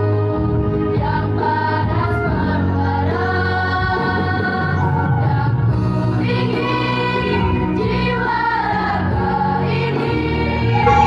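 Girls' school choir singing a song together, many young female voices sustaining and moving between notes over steady low tones.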